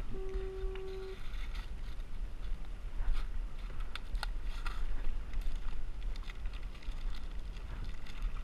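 Wind buffeting the microphone out on open water, a steady low rumble, with scattered small ticks and splashes. A steady pitched tone lasts about a second right at the start.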